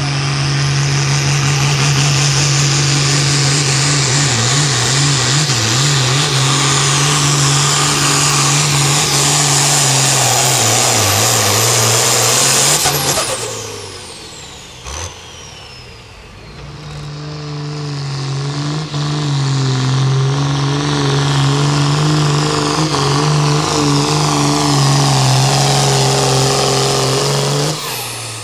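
Diesel pulling tractors at full throttle, dragging the weight sled: a steady engine drone with a high turbo whistle climbing through the pull. About halfway through, the first engine comes off power and its whistle falls away. Then a second tractor's engine builds back up to full power.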